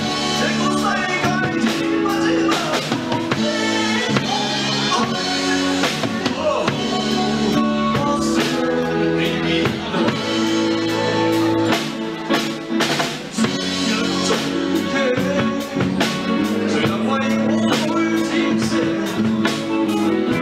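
A man singing into a handheld microphone, backed by a live band with a drum kit keeping a steady beat and electric guitar.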